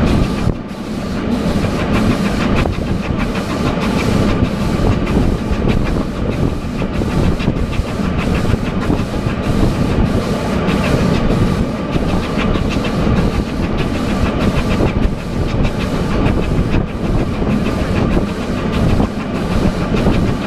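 Adler steam train replica running along the track, heard from its open carriages: a steady low rumble with a rhythmic clatter of wheels on rails, about two beats a second.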